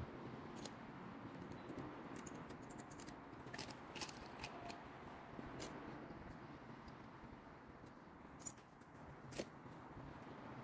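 Faint scattered metallic clicks and ticks of a small hex nut and rings being handled and fitted onto a short threaded steel rod, most of them in a cluster near the middle and two sharper ones near the end, over a low steady hiss.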